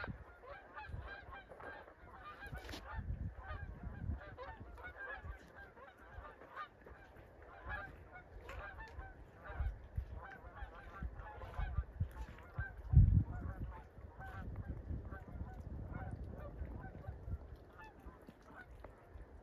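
A flock of geese flying overhead, honking continually in many overlapping calls. A low thump about 13 seconds in.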